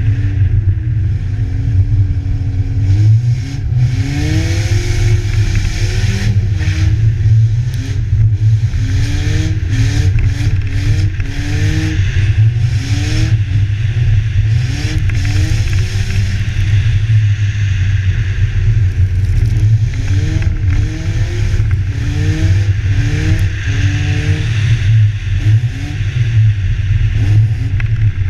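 BMW engine revving up and down over and over during an ice drift, heard close from the hood, with repeated bursts of hiss over it.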